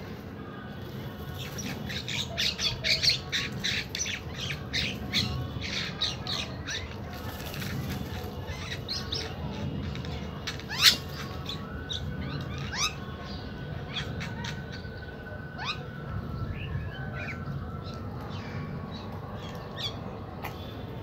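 A mixed flock of house crows and common mynas calling, a dense run of short harsh calls over the first few seconds that thins out later, with one sharp loud call about eleven seconds in.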